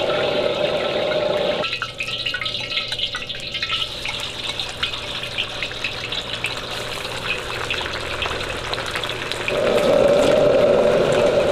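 Duck slices frying in a wok of hot oil, the oil crackling and sizzling, over the steady rush of a gas wok burner. The burner noise drops away about two seconds in and comes back strongly near the end, leaving mostly the sizzle in between.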